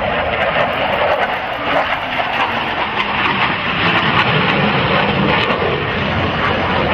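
Blue Angels F/A-18 Hornet jet flying past, its twin engines making a loud, steady roar with crackling running through it.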